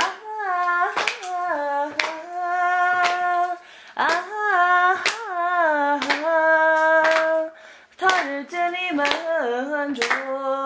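A solo voice singing a slow melody with long held notes and sliding ornaments, over a sharp beat made by hand about once a second.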